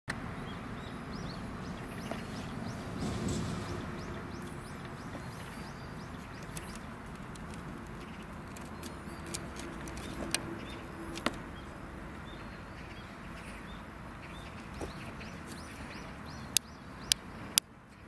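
Steady outdoor hiss with birds chirping. Near the end come three sharp clicks about half a second apart: the push-button switch on the back of a small USB desk fan being pressed, and the hiss drops after the third.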